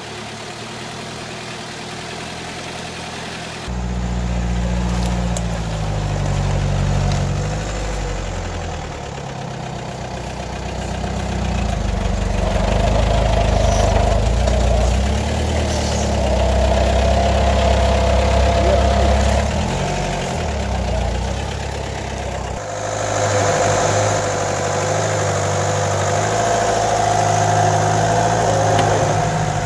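Mitsubishi Pajero 4x4 engine working under load in deep mud, its pitch rising and falling as the throttle is worked, with a higher whine over it in places. The sound changes abruptly about 4 seconds in and again past 20 seconds.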